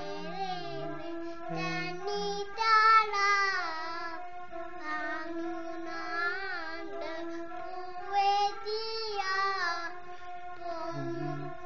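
A young girl singing a Sinhala song into a handheld microphone, her voice wavering and gliding in pitch, over a backing track of steady held tones.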